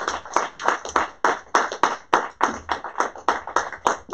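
Audience applauding at the end of a lecture. One close clapper stands out at about three to four claps a second.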